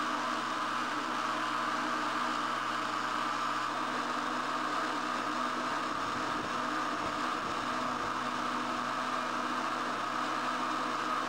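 Two-stroke chainsaw engine running steadily at high revs, holding an even pitch and level.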